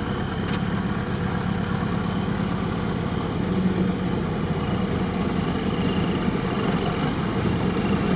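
Off-road vehicle engine idling steadily.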